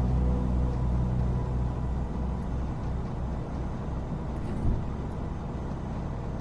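Steady low rumble of a semi truck driving, engine and road noise heard from inside the cab. The last notes of a song die away in the first second or two.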